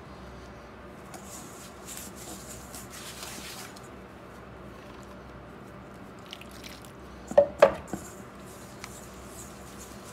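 Hands mixing and squeezing wet flour into dough in a stainless steel bowl: soft, squishy rubbing and shuffling, with two sharp knocks against the bowl about seven and a half seconds in.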